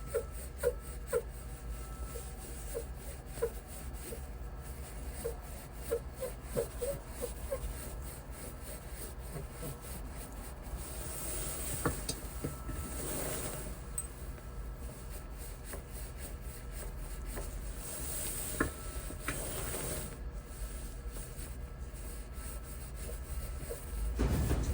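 Toyota HiAce creaking with a 'gigigi' rubbing noise as the steering wheel is turned: a run of short squeaks over the first several seconds, then two longer rasping creaks later on.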